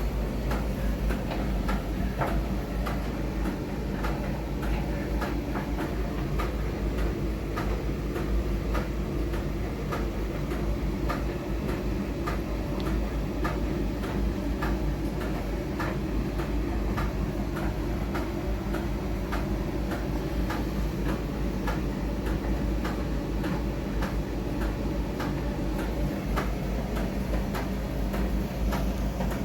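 Miele front-loading laundry machine running a load of bath towels: a steady low hum with light, regular clicks about two a second.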